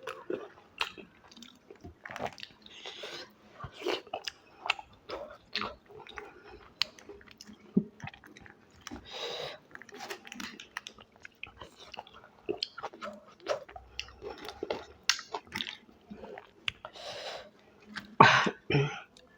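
A person eating close to the microphone: irregular chewing and biting with crunches, a louder burst of crunching near the end.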